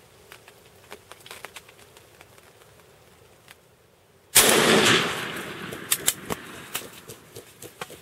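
A single loud shotgun blast about four seconds in, its echo fading over about a second. Scattered light clicks and rustles come before and after it.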